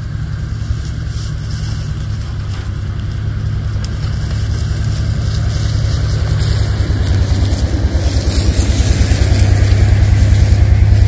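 Ford Super Duty pickup towing a flatbed trailer, its engine running at a slow crawl as it drives up and past, a low pulsing hum growing steadily louder and loudest near the end.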